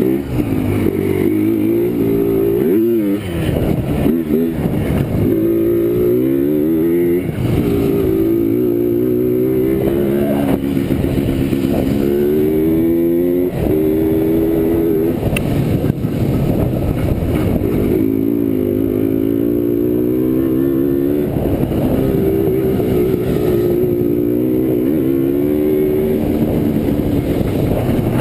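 Yamaha Blaster quad's two-stroke single-cylinder engine being ridden hard, heard from the seat: its pitch climbs and drops back over and over as the throttle is opened and closed.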